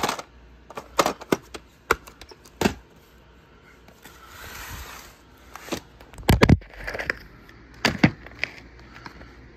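Plastic VHS clamshell cases clacking and knocking as they are handled and stacked on a wooden floor: a string of sharp clicks, a brief rustling slide near the middle, and a heavier thump about six seconds in.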